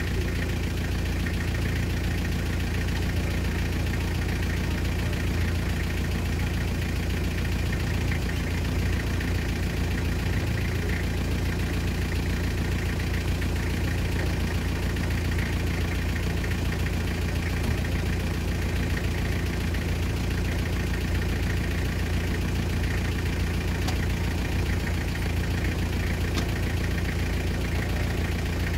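Off-road Mitsubishi Pajero MKII's engine idling at low revs as it crawls slowly downhill, a steady low engine sound that barely changes.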